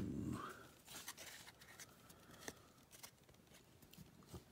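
Faint handling of a stack of Prizm football trading cards: a short rustle at the start, then a few soft clicks and slides as cards are moved through the stack.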